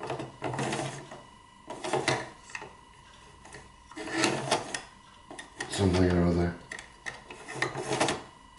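Plastic and metal parts of a slide projector's slide-change mechanism being pushed by hand, giving intermittent rubbing, scraping and clicks as the actuating part is worked back and forth until it flips over to one side.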